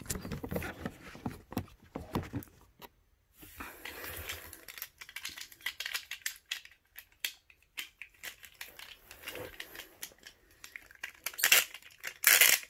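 Small plastic clicks, rattles and rustles as Beyblade tops and their launchers are handled and readied for another launch, with a louder scraping rustle near the end.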